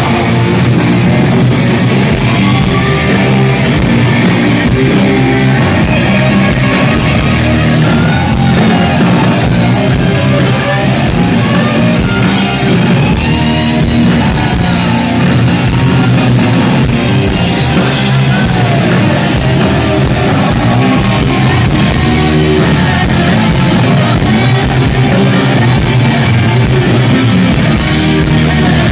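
A heavy metal band playing live at full volume: distorted electric guitars, bass guitar and drum kit, with singing over them.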